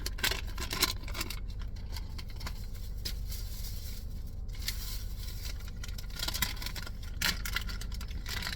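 Irregular crackling and crunching from eating pineapple chips out of a snack bag, in clusters with short pauses, over a steady low hum.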